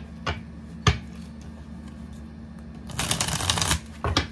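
A deck of tarot cards being shuffled by hand: a few sharp card snaps in the first second, then a longer rush of cards sliding through the hands about three seconds in.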